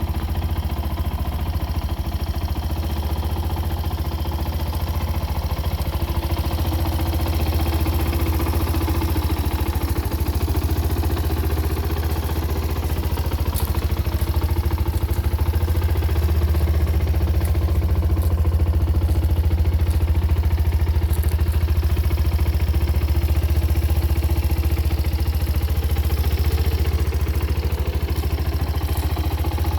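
QJ Motor SRK 125 motorcycle's 125 cc engine idling steadily, with a few faint ticks over it.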